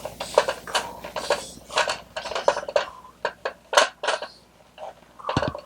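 Plastic toy trucks and pieces being handled: irregular clicks and clatter of hard plastic knocking together, with a louder knock near the end.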